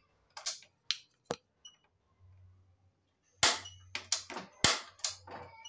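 Cooking oil heating in a non-stick frying pan, spitting with sharp pops and short crackles: a few scattered pops in the first second or so, then a denser run of them from the middle on.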